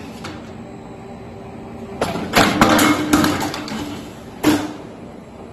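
C/Z purlin cold roll forming machine running with a steady hum. About two seconds in comes a cluster of loud metal clanks and bangs lasting over a second, then one sharp knock near the end, as the cut-off and punching station works the steel purlin.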